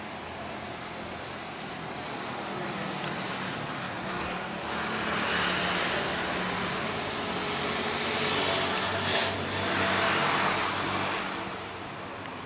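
Rear-mounted Scania K420IB coach diesel, a six-cylinder engine, idling with a steady low hum. A louder rushing, airy noise swells up about four seconds in, peaks twice, and fades back near the end, with a sharp click in between.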